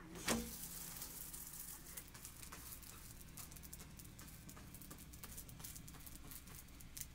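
Wood fire crackling under a metal griddle, with many small irregular pops and ticks. About a third of a second in there is one sharp knock with a short ringing note as the flatbread is turned over onto the griddle.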